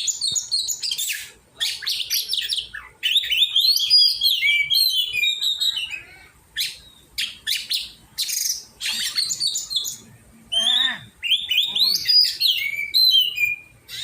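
Oriental magpie-robin (kacer) singing: rapid, varied phrases of high chirps and gliding whistles in bursts, with brief pauses.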